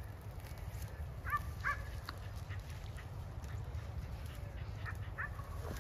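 A dog barking a few short times in the distance, two barks close together about a second in and another near the end, over a steady low rumble.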